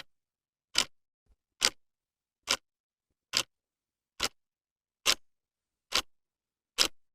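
Clock ticking: sharp, evenly spaced ticks a little slower than one a second, with dead silence between them.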